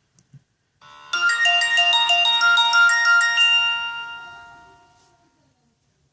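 A Samsung E2121B ringtone played through a Sony Ericsson W595 phone's speaker: a short, quick melody of bright pitched notes. It starts about a second in after two faint clicks, and the last notes ring out and fade away over the following couple of seconds.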